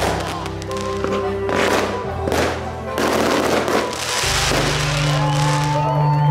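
Fireworks going off in several bursts with crackling, the longest crackle about three seconds in, over background music with steady notes and bass.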